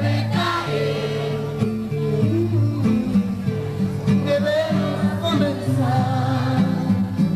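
A song with singing over guitar and a steady, stepping bass line.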